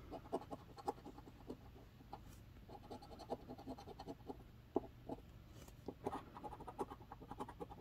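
A coin scraping the coating off a scratch-off lottery ticket: a faint, irregular run of short scratching strokes.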